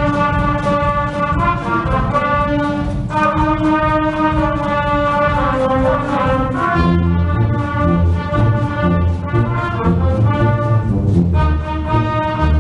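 Concert wind band playing, brass and saxophones holding chords. A low bass part with a steady beat comes in about seven seconds in.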